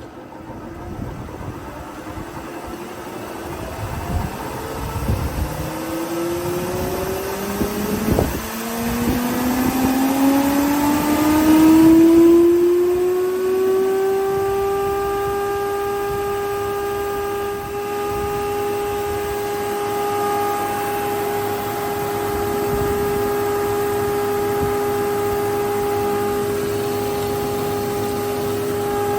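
STU 630 thicknesser's 7.5 kW motor and four-knife cutterhead starting up: a rising whine that climbs in pitch for about ten seconds, with a knock about eight seconds in, then running idle at a steady pitch.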